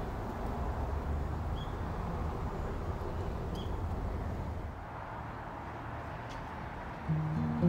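Steady low outdoor rumble with two faint, short high chirps; acoustic guitar background music comes in near the end.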